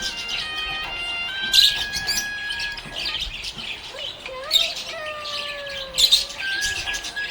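Budgerigars chirping and warbling in quick bursts of short high chirps, over steady background music.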